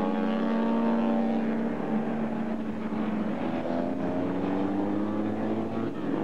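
Vintage road-racing motorcycles running hard past on a race track. A steady high engine note holds for the first few seconds, then climbs in pitch through the second half as a bike accelerates, and drops near the end.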